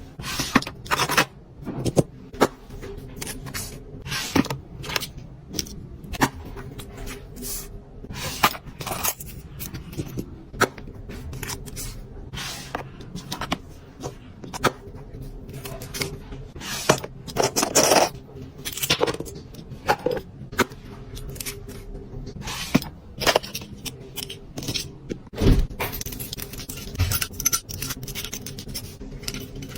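Fast, irregular tapping and scraping of fingernails on packaging: sharp clicks at an uneven pace, with a few louder knocks.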